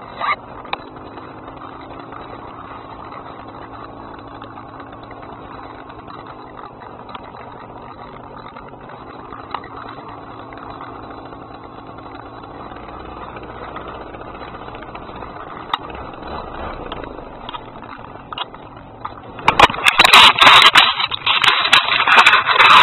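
Paramotor engine running with a steady low hum. About nineteen seconds in, a sudden loud, rough noise with rapid crackles takes over as the launch begins.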